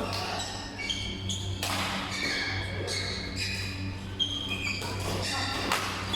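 Basketball game in a gym: sneakers squeaking on the court in many short high-pitched chirps, with a few thuds of the ball bouncing, over a steady low hum.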